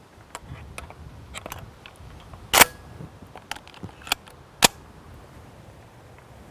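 Shotgun being loaded by hand: a series of small metallic clicks as shells go in, with two sharp, louder clacks about two and a half and four and a half seconds in as the action is worked and closed.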